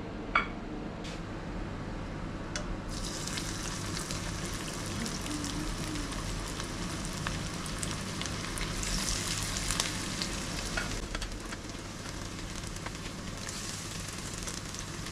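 Pieces of chicken 65, marinated and coated in corn flour and rice powder, sizzling as they are dropped one by one into hot oil in a non-stick wok. A sharp clink comes just under half a second in, and the hiss of frying starts about three seconds in and carries on with scattered crackles, growing stronger as more pieces go in.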